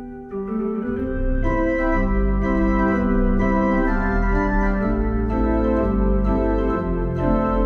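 Organ playing a 1920s-style ragtime piece: held chords over a low bass, changing every half second or so, with a brief drop in level just after the start.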